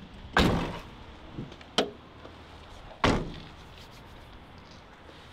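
Two loud thuds about two and a half seconds apart, with a lighter knock between them, like doors or heavy objects being slammed or set down.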